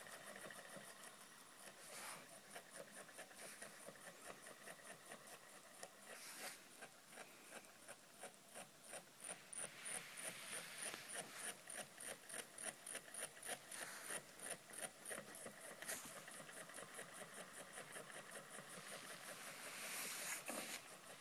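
Small homemade solenoid engine running: its solenoid plunger and contact switch clicking in a quick, steady rhythm, a few clicks a second, as the flywheel turns. The clicking grows louder about nine seconds in.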